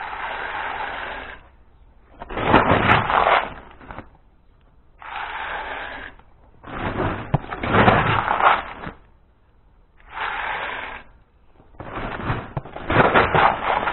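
Dried tiger nuts being scooped from a plastic sack with a plastic tub and tipped into a pot of boiling water, over and over: about six bursts of rattling nuts and rustling plastic, each a second or two long, with short pauses between.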